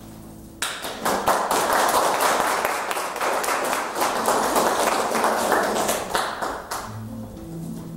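Audience applauding, starting suddenly under a second in and dying down after about six seconds; near the end an acoustic guitar starts playing again.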